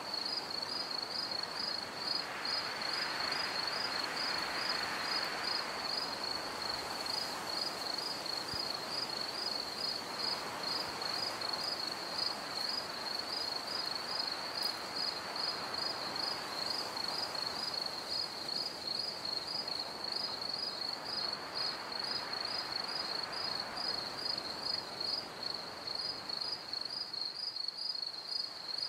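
A steady high-pitched chirp pulsing evenly a few times a second, over a soft hiss that swells and fades every several seconds, like a nature-sound background of insects.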